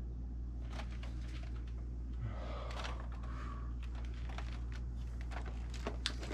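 Steady low hum with scattered light clicks and rustling over it: a brief rustle about two and a half seconds in, and a few sharper clicks near the end.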